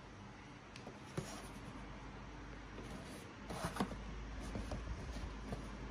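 Cardboard boxes being handled and turned around on a wooden desk: a few light taps about a second in, then a brief scraping rustle a little over three seconds in, the loudest part, over a low steady rumble.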